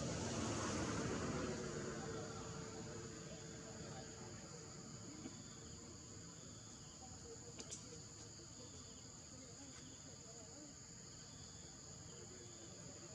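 Steady high-pitched drone of a forest insect chorus, running as two even bands throughout. A swell of rushing noise fills the first two seconds, and there are a couple of faint clicks.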